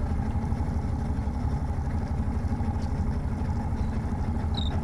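Boat engine idling with a steady low rumble.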